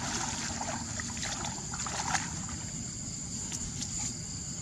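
Water sloshing and splashing, with scattered short splashes, most of them in the first half.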